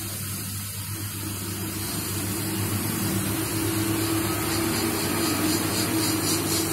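Hot-air SMD rework station blowing onto a phone motherboard chip: a steady airy hiss with a low hum that slowly grows louder, as the WCD9326 audio codec IC is heated to be desoldered.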